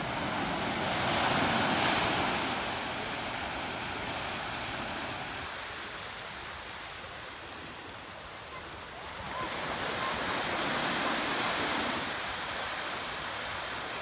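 Ocean surf: waves breaking and washing up on a beach, rising in two swells, the first right at the start and the second about ten seconds in.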